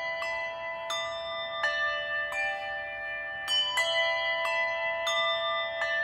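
Several bells of different pitches rung over and over, a new stroke about every three-quarters of a second, each tone ringing on under the ones that follow. They are tolled in remembrance of the dead.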